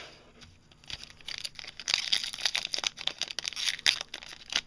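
Hockey card pack wrapper being torn open and crinkled by hand: dense crackling and tearing that starts about a second in and keeps going.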